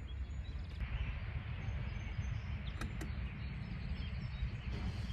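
A steady low rumble with a hissy background, broken by two sharp clicks close together about three seconds in.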